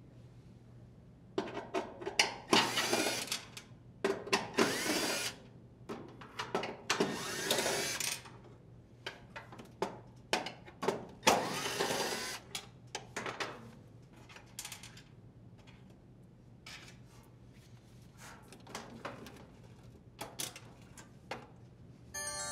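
Cordless drill driver running in several short bursts, each about a second long, with a whine that bends in pitch, as it backs screws out of a dryer's sheet-metal motor plate. Scattered clicks and light metal rattles come between the bursts.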